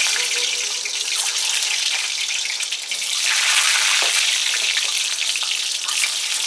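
Hot refined oil sizzling and crackling in a steel kadai as peeled hard-boiled eggs are laid in to fry lightly.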